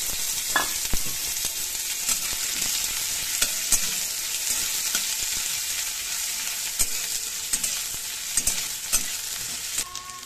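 Sliced onions sizzling in hot mustard oil in a metal kadai, with a metal spatula clicking and scraping against the pan as they are stirred. The sizzle eases off near the end.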